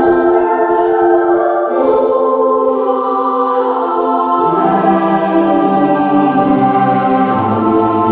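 Background music of slow, sustained chords that change every few seconds.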